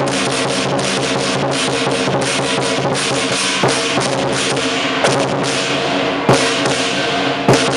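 Lion dance percussion band playing: drum, cymbals and gong in a dense ringing wash of fast cymbal clashes, with heavy accented hits about three and a half, five, six and seven and a half seconds in.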